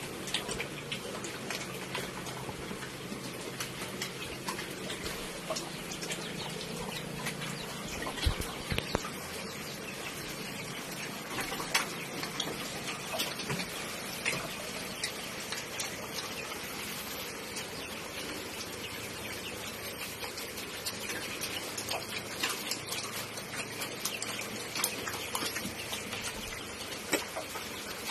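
Pigs moving about in a concrete pen: scattered small clicks and knocks over a steady hiss.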